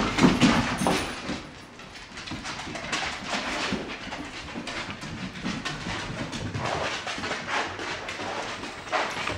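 Dogs, a Cardigan Welsh corgi puppy among them, playing rough on a hard tiled floor: claws clicking and skittering with scuffling, loudest in the first second as they wrestle.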